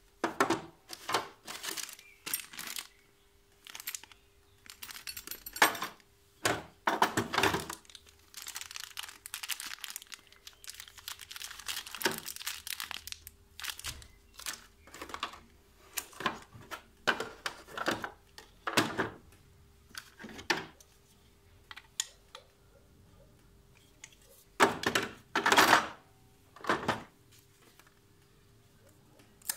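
Hands handling packaging and parts in a hard plastic tool case: crinkling of a plastic bag and knocks and clunks of plastic pieces set into the case's inlay, in irregular bursts, with a longer rustle of crinkling in the middle and a few louder bursts near the end.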